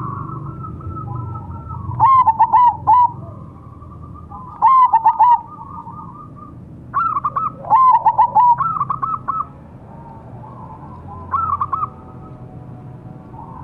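Zebra dove (perkutut) singing its staccato cooing song: four loud phrases of quick, clipped coo notes, with fainter cooing in between.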